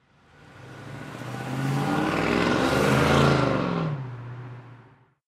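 A car driving past: its sound swells up to a peak about three seconds in, the pitch drops as it passes, then it fades away.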